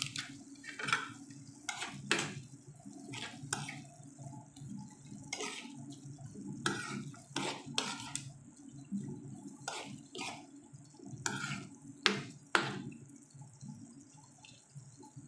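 Chayote, tomato and onion simmering in a little water in a nonstick frying pan, with a metal spoon stirring through it: wet sloshing and irregular sharp clicks of the spoon against the pan, over a low steady hum.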